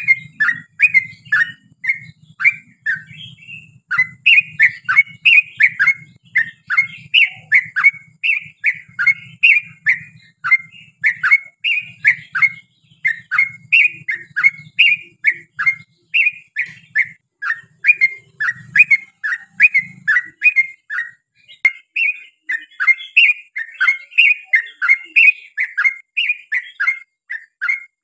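Yellow-vented bulbul (trucukan) singing a long, unbroken run of bubbly chirping notes, about two to three a second.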